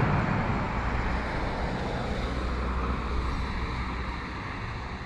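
Road traffic noise: a car's tyre and engine noise, loudest at the start and slowly fading away, over a steady low rumble.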